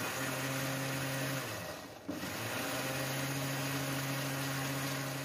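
Electric mixer grinder blending oats and water in its steel jar: a steady motor hum that winds down about a second and a half in and starts again about two seconds in.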